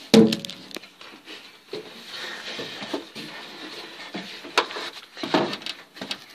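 Handling noise on a phone's microphone: clothing rubbing and bumping against it, with a loud knock right at the start and scattered clicks and rustles after.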